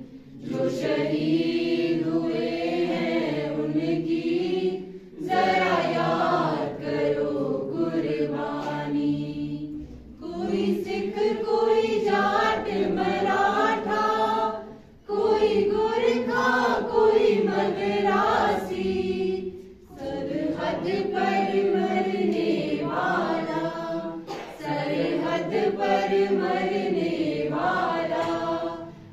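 Mixed group of young women and men singing a slow Hindi song together without instruments, in long phrases with short pauses for breath about every five seconds.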